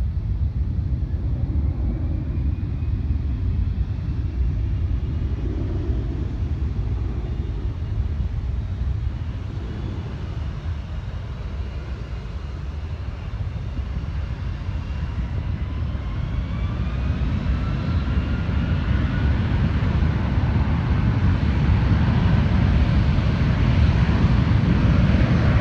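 Jet airliner engines spooling up for takeoff: a steady low rumble that grows louder over the second half, with a thin engine whine that rises in pitch.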